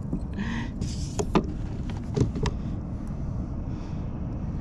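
Steady low rumble of wind and sea on the microphone, with a few sharp clicks and taps about a second and two seconds in.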